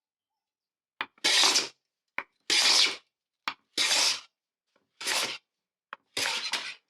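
Hand plane taking five separate strokes along a wooden board, each a short rasping swish about a second apart, most with a light knock just before it as the plane is set down.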